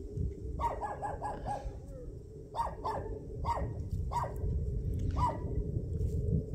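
A dog barking repeatedly: a quick run of about five short barks about half a second in, then single barks every half second to a second.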